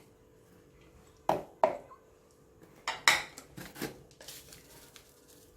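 Kitchenware clinking and knocking as vegetables are added to a dish: about half a dozen short, sharp knocks between one and four seconds in.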